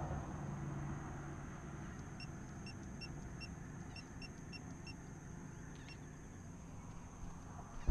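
Low, steady rumbling noise with a run of about eight short, high electronic beeps, roughly three a second, starting about two seconds in.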